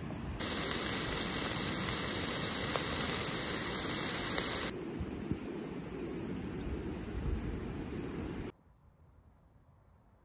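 Small backpacking gas stove burning under a cooking pot: a steady hiss, loud at first, softer from about halfway, then cut off abruptly near the end.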